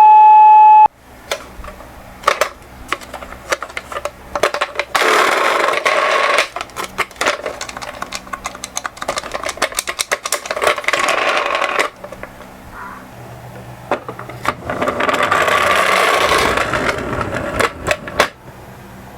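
A loud steady siren tone cuts off about a second in. Then toy minicars roll down a slope: their small wheels rattle and click, with two long spells of rolling clatter.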